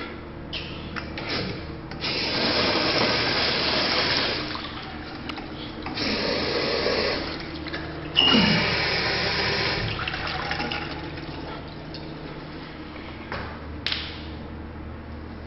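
Urinal flushing: water rushing in three surges, the loudest starting suddenly about eight seconds in, over a steady low hum.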